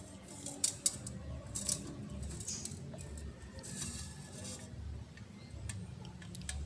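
Faint, scattered clicks and light clinks of kitchen utensils, over a low steady hum.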